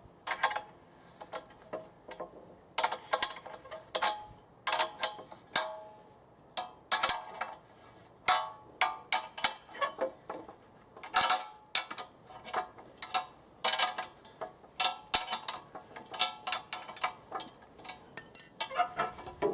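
Spanner clicking and clinking on metal nuts and an antenna mounting bracket as the nuts are worked tight, a run of irregular sharp metal clicks, some with a short ring.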